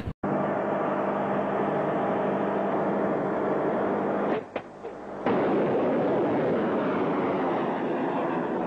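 Continuous rushing noise from an S-300 surface-to-air missile launch, recorded on a camcorder. It drops away briefly about four seconds in and comes back slightly louder about a second later.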